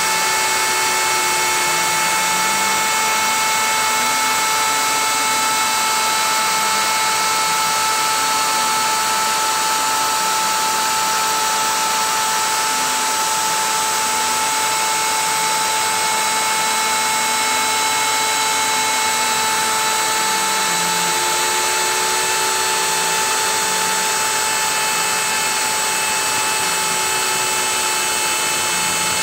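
CNC router spindle running with a steady high whine while its end mill cuts a circle through painter's tape into hard bamboo flooring. Under the whine, the stepper motors' lower tones step and glide up and down as the axes trace the curve.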